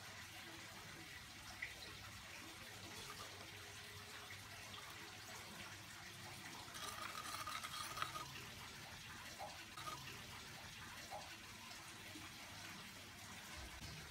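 Faint liquid swishing and light clinks of a porcelain spoon stirring vinegar and sugar into chicken stock in a glass bowl, louder for a second or so about seven seconds in.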